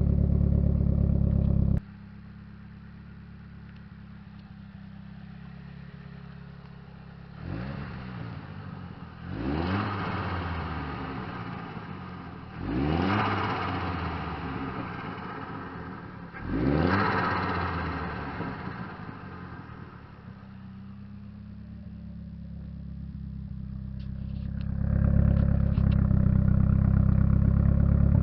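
Nissan 200SX's turbocharged CA18DET four-cylinder running loud and low, which cuts off suddenly, then idles with four quick revs that each climb sharply and die back down. Near the end it builds up to loud again and stays there. The car has a 3-inch exhaust, an open air filter and an SR20 T28 turbo.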